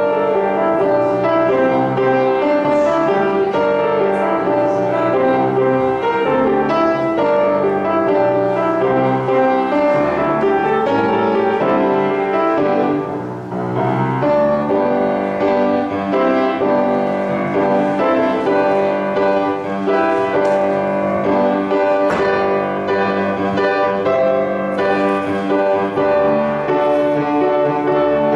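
Instrumental keyboard music with slow, held chords, starting suddenly at the opening.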